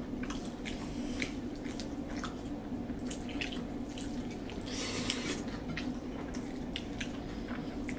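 Eating by hand: scattered small wet clicks and smacks of chewing, and fingers working rice on plates, with a brief scrape about five seconds in, over a steady low hum.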